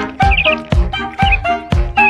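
Upbeat music with a steady beat of about two strokes a second and short, wavering high notes over it.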